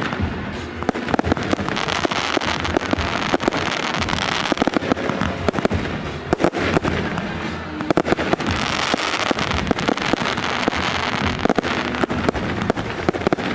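Aerial fireworks bursting: a dense run of rapid cracks and pops over a steady hiss of crackling stars, with music underneath.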